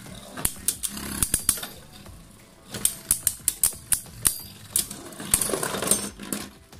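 Two Beyblade Burst spinning tops clashing in a plastic stadium: a series of sharp plastic clacks as they hit each other and the walls. The hits end in a dense flurry five to six seconds in, when one top bursts apart into its pieces.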